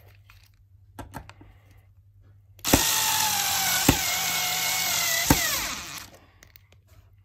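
Cordless drill-driver running for about three seconds, driving a Phillips screw through a metal drawer runner into a chest-of-drawers side panel. Its motor whine sinks in pitch as it stops. A few light clicks come before it starts.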